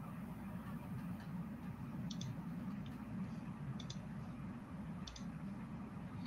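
Faint computer mouse clicks, a few quick double clicks one to two seconds apart, over a low steady room hum.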